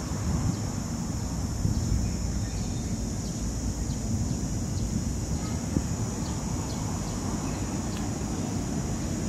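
Steady outdoor background noise: a low rumble with a constant high-pitched hiss above it and a few faint ticks.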